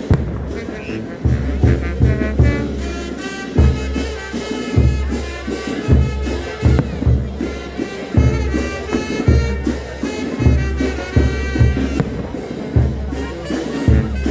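Brass band music, with brass and wind instruments playing a melody over a bass drum beat.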